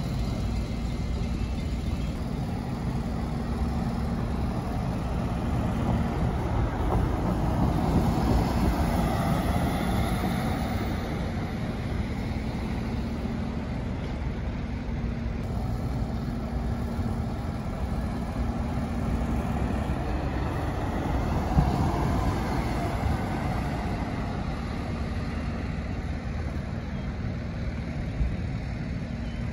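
Road traffic with a bus engine running: a steady low rumble and hum, with vehicles passing that swell about eight seconds in and again around twenty-two seconds.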